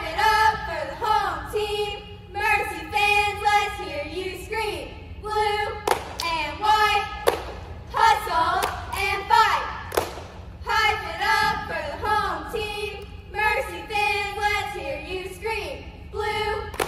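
Four girls chanting a cheer in unison, rhythmic shouted phrases with short breaks between them, punctuated by a few sharp claps.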